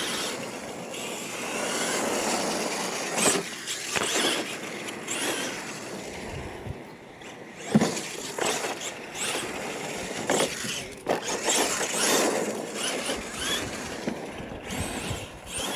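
Radio-controlled monster trucks driving on a dirt track, their motors and tyres rising and falling with the throttle. A sharp knock about eight seconds in, the loudest moment, as a truck lands a jump.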